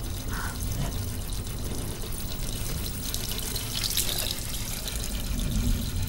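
Tap water running steadily into a sink, a little louder about four seconds in.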